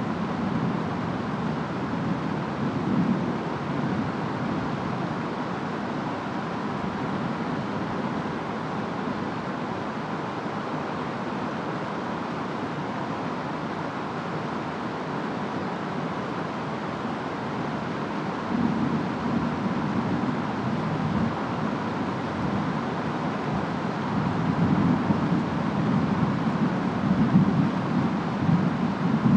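Steady rainfall with wind, and low rumbling rolls of distant thunder: a short one a few seconds in, another past the middle, and a longer, louder roll near the end.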